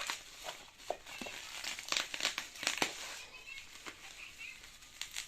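Plastic shipping packaging crinkling and rustling as it is handled and unwrapped, with a cluster of sharper crackles about two to three seconds in.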